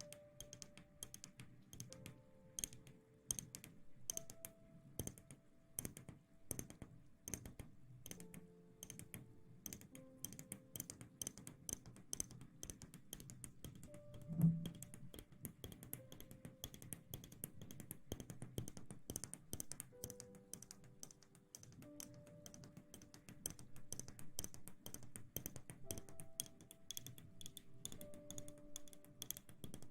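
Close-miked ASMR sounds: a dense run of rapid, crisp ticks and taps, over soft background music with slow held notes. One louder low thump about halfway through.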